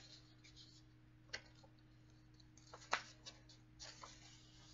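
Near silence with a few faint clicks and rustles from hands handling a paper picture book, the sharpest click about three seconds in, over a faint steady hum.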